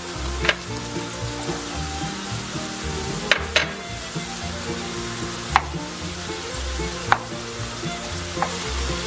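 Diced potatoes sizzling in hot oil in a pan, stirred with a wooden spoon, with several sharp knocks against the pan.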